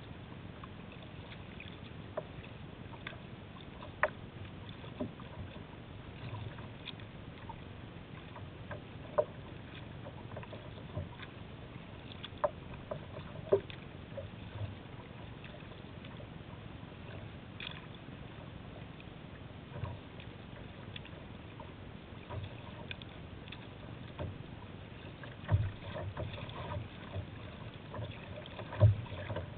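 Water lapping and splashing against a kayak being paddled over choppy river water, with scattered small splashes and drips and a couple of louder splashes near the end, over a steady low rumble.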